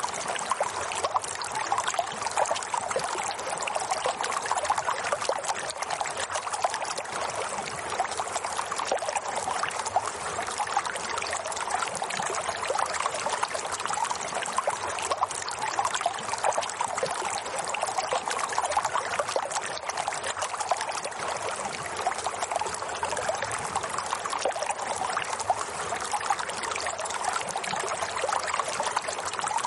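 Running water trickling steadily, like a small stream, with a fine splashing texture and no change in level.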